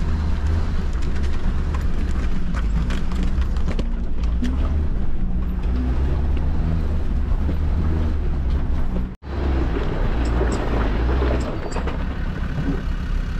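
Land Rover 4x4's engine pulling steadily at low revs as it crawls up a rocky green lane, heard from inside the cab, with occasional knocks of stones under the tyres. About nine seconds in the sound drops out for a moment and the engine carries on.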